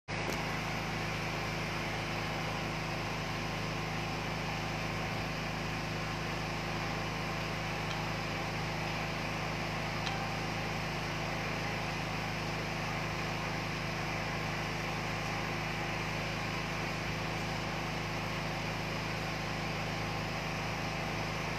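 Steady mechanical hum with a faint click about ten seconds in.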